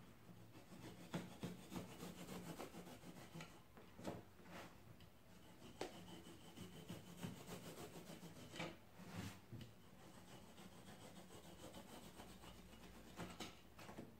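Cutter blade sawing and slicing through a thick block of foam sponge, carving it to shape: faint, irregular rubbing strokes with a few sharper scrapes.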